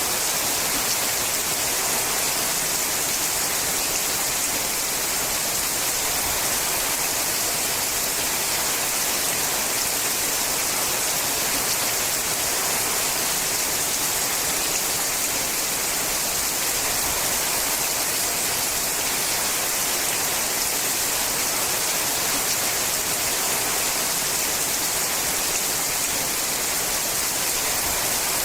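Steady heavy rain drumming on a sheet-metal roof, an even dense hiss with no let-up.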